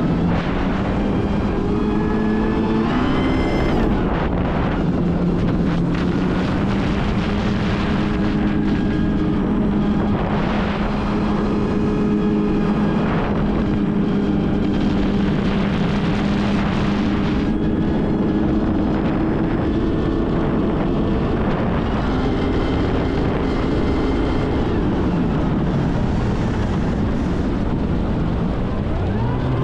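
Kawasaki Ultra 310 jet ski's supercharged four-cylinder engine and jet pump running at cruising speed, heard from the handlebars. The engine note climbs a few seconds in and holds steady. Near the end the revs drop and the pitch falls.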